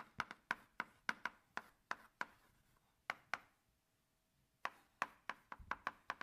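Chalk writing on a blackboard: a run of quick, sharp taps and strokes as an equation is written out, several a second, with a pause of about a second past the middle before the tapping resumes.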